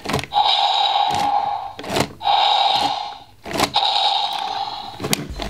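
Mattel Thrash & Throw T-Rex toy's thrashing whoosh sound effect playing three times, each about a second long, as its head-thrash feature is worked. Sharp clicks come between the sounds.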